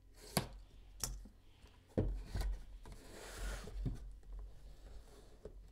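Cardboard box being opened and handled: a few soft knocks as the lid comes off and the box is moved, and a rustling rub of cardboard sliding about three seconds in.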